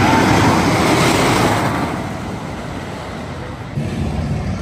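Wooden roller coaster train rumbling along its track, loudest in the first two seconds and then dying down.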